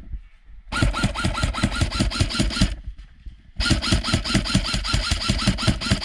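Airsoft rifle firing long full-auto bursts: a fast, even string of shots with the gearbox's mechanical chatter, about two seconds of firing, a short pause, then a second longer burst.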